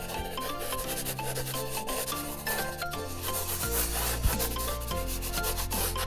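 Pink felt-tip marker rubbing on paper in quick, repeated back-and-forth colouring strokes, over soft background music.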